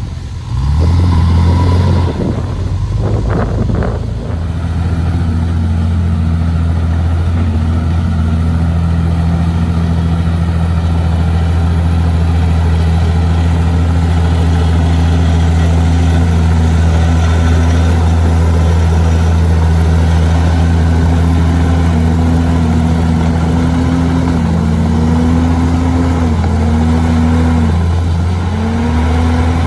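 Komatsu bulldozer's diesel engine running steadily under load. Its pitch sags and recovers several times in the last third, and there are a few sharp clanks about three seconds in.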